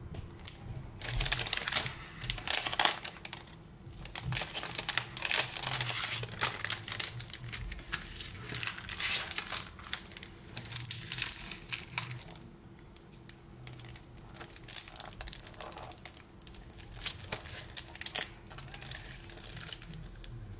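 Clear plastic packaging sleeves crinkling as they are handled and moved across the table. The crinkling comes in dense stretches through the first half, then as shorter, scattered crackles.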